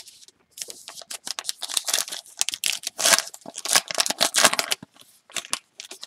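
Paper wrapper of a baseball card pack being torn open and crinkled by hand: a dense run of tearing and crackling for about four seconds, then a few lighter crinkles as the cards are drawn out.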